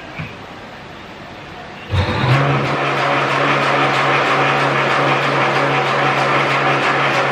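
Electric motor of a meatball-forming machine switching on about two seconds in and running steadily with a constant hum and a fast mechanical clatter.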